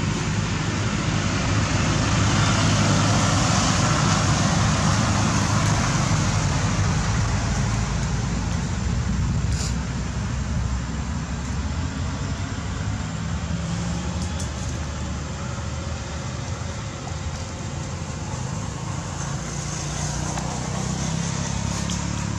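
Steady low motor-like rumble with a constant hiss, a couple of faint clicks in the middle.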